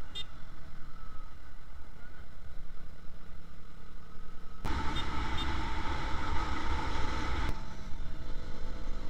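Road noise from a motorcycle riding through traffic: a steady rush of wind on the camera over the engine's low rumble. The noise gets louder for about three seconds in the middle, then drops back abruptly.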